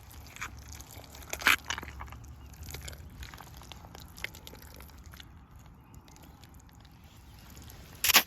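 Rubber boots squelching and sucking in mud: a run of wet, irregular steps, with the loudest squelch about a second and a half in and another sharp one near the end.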